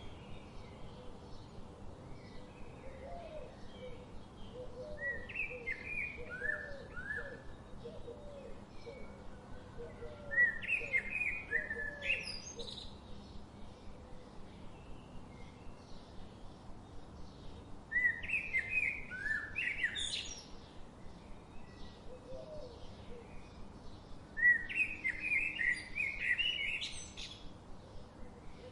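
Garden birds chirping and singing, in four loud bursts of quick, sweet descending notes about every six to seven seconds. A softer, lower note repeats steadily underneath through the first half.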